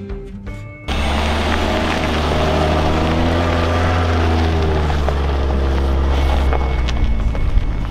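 INEOS Grenadier's BMW B58 turbocharged straight-six petrol engine, cutting in suddenly about a second in and running under load as the 4x4 climbs a steep dirt slope: a deep steady drone with an engine note that rises and falls.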